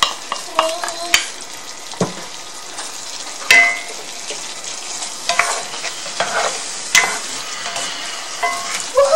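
Chicken stir-fry sizzling in sauce in a cast-iron skillet while it is stirred with a wooden spoon and a spatula, with the utensils scraping through the food and knocking sharply against the pan every second or so, the loudest knock about three and a half seconds in.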